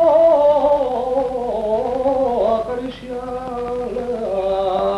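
A man singing a Spanish folk song, drawing one syllable out over long, wavering held notes that slowly sink in pitch.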